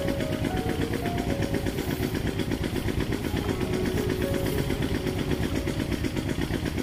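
A small engine running steadily at idle with a fast, even pulse. A faint melody of short held notes plays over it.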